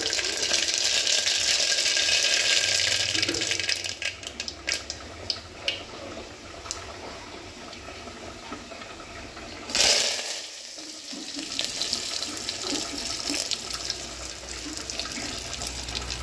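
Mustard seeds sizzling and crackling in hot oil in an aluminium pot for tempering: a steady sizzle at first, then scattered sharp pops. About ten seconds in there is a sudden, louder burst of sizzling as curry leaves hit the hot oil.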